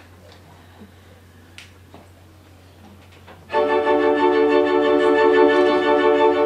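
Quiet room with a few faint rustles and clicks. About halfway through, organ music starts abruptly: loud sustained chords held steady.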